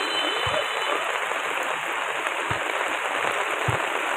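Heavy rain falling steadily, a dense even hiss of rain on the sodden ground. Three dull low thumps come through it, at about half a second, two and a half seconds and near the end.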